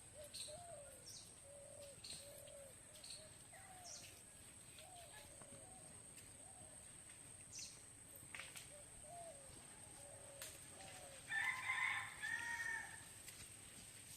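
Chickens in a village yard: soft, repeated clucking throughout, with a louder rooster crow lasting under two seconds about eleven seconds in. Small birds chirp now and then.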